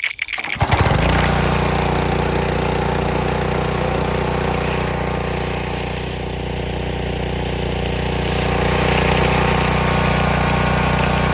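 A Simpson 3200 psi gas pressure washer's small engine starts about a second in and then runs steadily. Its level swells and dips a little as it runs.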